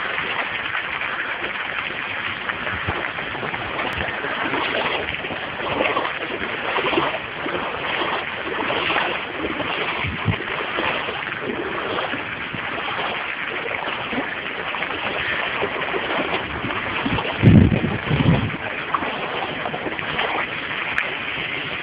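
Steady hiss of rain falling on standing floodwater. About three-quarters of the way in, wind buffets the microphone in a brief low rumble, the loudest moment.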